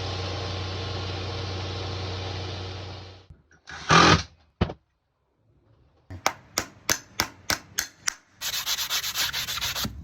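Farrier's tool work on a horse's hoof in several short cuts. An electric tool runs steadily with a low hum and stops about three seconds in, followed by a loud scrape and a click. Then comes a row of separate sharp rasp strokes, about five a second, and a quick run of fast rasping near the end.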